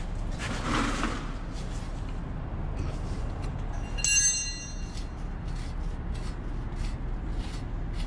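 Hand tools on the 24 mm lower ball joint nut of a truck's front suspension: a short scrape near the start, then a sharp metallic clink that rings briefly about four seconds in, with faint ticks, over a steady low hum.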